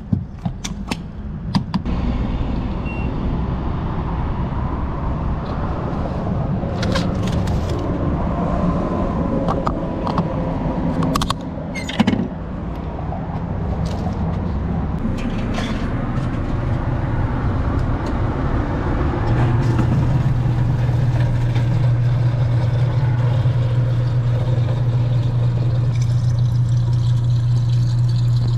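Jeep under way: engine and road noise building, with a few knocks and clicks in the first dozen seconds, settling into a steady low drone about two-thirds of the way in.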